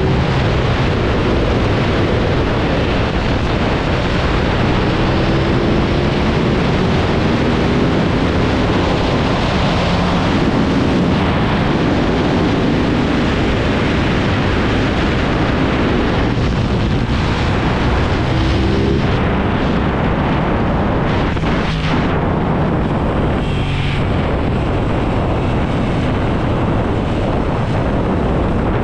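Aprilia RS660's parallel-twin engine heard from onboard at speed, its pitch climbing several times as it pulls through the gears, under heavy wind rush on the microphone. The bike slows toward the end.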